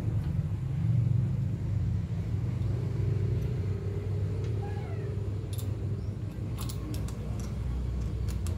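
Steady low rumble, with a few light clicks and taps of small parts being handled in the second half.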